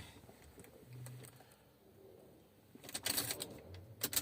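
Clicks and a rattle from a car's ignition key being turned, with the engine not cranking or starting.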